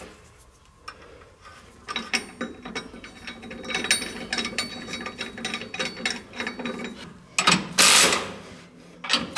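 Hand ratchet clicking in quick repeated strokes as nuts are run down on carriage bolts. Near the end a 3/8-inch AC Delco cordless impact wrench with a deep-well socket runs in two short bursts, tightening them.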